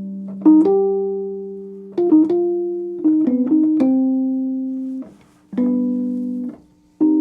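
Wurlitzer 200A electric piano, freshly restored and just powered up, played through its built-in speakers: about five struck chords and short phrases, each ringing and fading, several cut off short as the keys are released.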